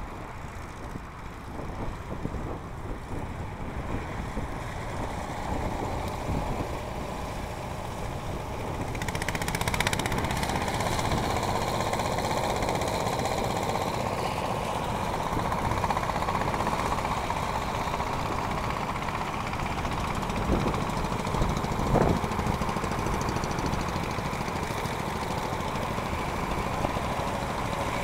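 Vintage tractor engines chugging as a line of old tractors drives past, getting louder about a third of the way in as a nearer one comes by. A couple of short knocks near the end.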